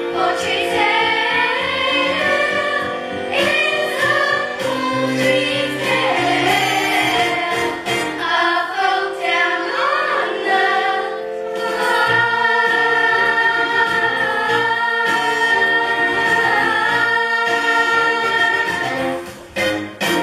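A group of voices singing a musical-theatre song together with backing music, ending on a long held chord that cuts off near the end.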